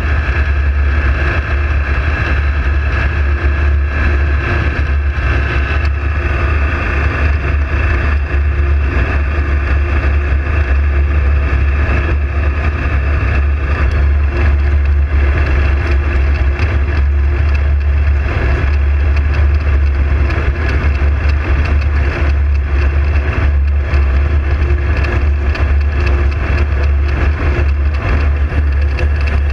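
A loud engine drone, steady and unbroken.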